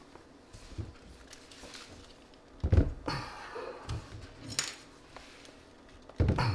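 Heavy plastic-cased lithium polymer battery packs being stacked and shifted on a laminate countertop: a few hard knocks and clatters, loudest a little under three seconds in and again near the end.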